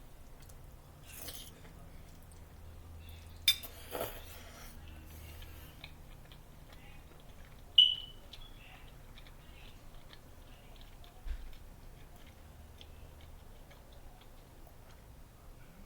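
Quiet chewing of a mouthful of chicken alfredo, with scattered small clicks and a short ringing clink about eight seconds in.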